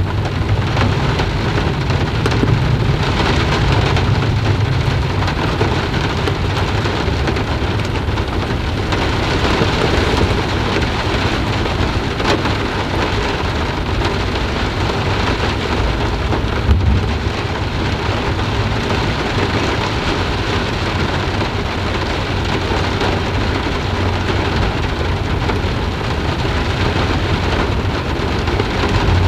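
Steady rain falling and pattering on surfaces, with a low rumble of thunder in the first few seconds. One sharp tap stands out a little past halfway.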